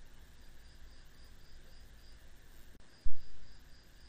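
A cricket chirping in a high, even pulse, about four pulses a second, with a short pause around the middle. A single thump about three seconds in is the loudest sound.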